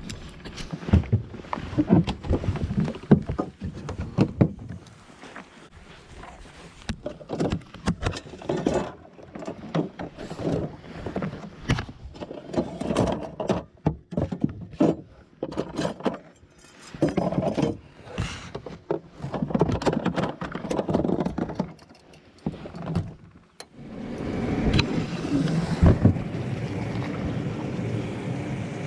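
Irregular knocks and clatter of gear being handled in an aluminium jon boat. About three-quarters of the way through, a steady running noise takes over as the boat gets under way.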